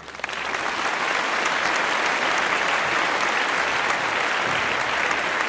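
Large audience applauding: dense, steady clapping that swells up within the first half second and then holds.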